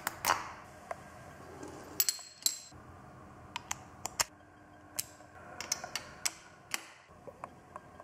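Irregular sharp metallic clicks and clinks of a socket, extension bar and ratchet being fitted together and handled to take out a small motorcycle engine's spark plug, with ringing clinks about two seconds in.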